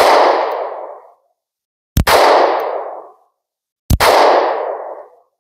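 SCCY CPX-2 9mm pistol firing hot surplus ammunition: three shots about two seconds apart, each a sharp report followed by about a second of echo dying away.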